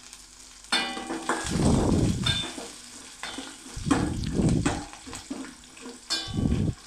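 A steel spatula stirring chana dal, urad dal and green chillies as they fry in hot oil in a stainless steel kadai. The spatula scrapes the pan in a string of strokes about a second apart.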